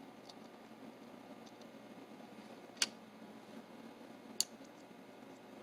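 Two sharp clicks about a second and a half apart, with a few faint ticks, as small parts and a spring are set into the case of a disassembled mortise lock.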